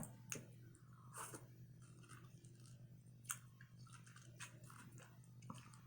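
Faint close-miked chewing: soft wet mouth clicks and smacks from eating a stuffed pineapple filled with coconut rice, egg, cheese and bacon, over a steady low hum.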